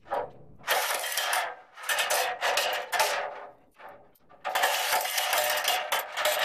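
Aluminium extension ladder rattling and clanking as it is handled and raised, metal sections knocking and sliding against each other in several bursts.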